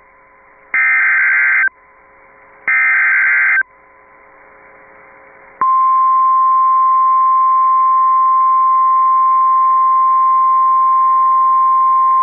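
Emergency Alert System tones from an NWS weather alert: two warbling SAME header data bursts of about a second each, with radio static hiss between them. About five and a half seconds in, a steady single-pitched 1050 Hz weather radio alert tone begins and holds.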